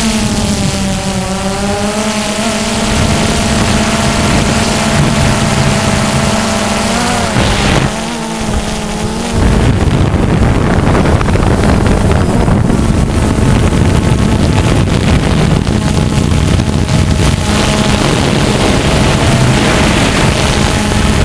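Quadcopter's electric motors and propellers buzzing steadily, heard close up with wind on the microphone. The pitch wavers as the drone manoeuvres, and about eight seconds in the sound dips briefly, then comes back rougher and noisier.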